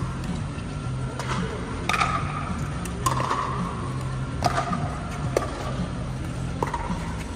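Pickleball rally: the hard plastic ball popping off paddles and bouncing on the court, about six sharp pops at uneven intervals, each ringing briefly in the echoing air dome, over a steady low hum.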